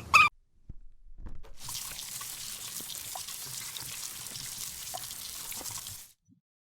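A bird's repeated call cuts off right at the start. About a second and a half in, a steady hiss of running or splashing water begins with a few small ticks in it, and it stops suddenly about six seconds in.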